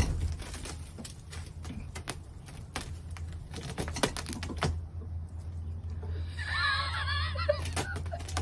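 Irregular clicks and taps, typical of a cat's claws catching on a fabric shade sail as it clings to it, over a low steady hum. A short warbling sound comes in about six and a half seconds in.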